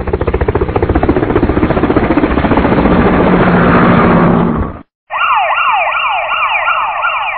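Outro sound effects: a loud, rapid rattling buzz that builds for nearly five seconds and cuts off suddenly. After it comes a siren-like effect of quick repeated rising wails, about three a second.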